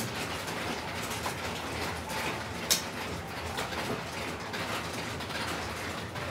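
Mahjong tiles clicking as players draw from the wall and set discards down on the table, with one sharper clack a little under three seconds in.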